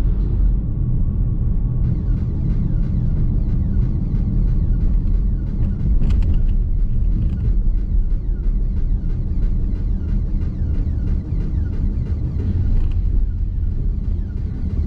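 Road and tyre rumble inside a moving Nissan X-Trail Hybrid's cabin, steady and low, with a brief knock about six seconds in.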